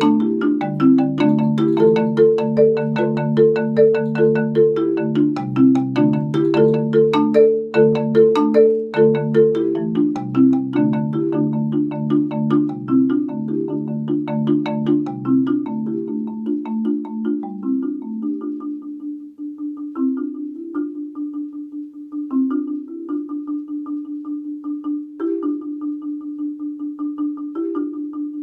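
Solo marimba played with four mallets: fast runs of struck notes over low sustained chords, thinning after about two-thirds of the way into a quieter passage on one rapidly repeated note with occasional higher notes.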